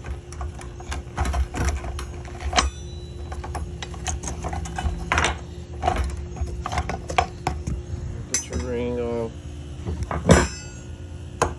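Irregular plastic clicks and clinks as connectors and lines on a car's fuel pump module are handled, with one sharp, loud click about ten seconds in.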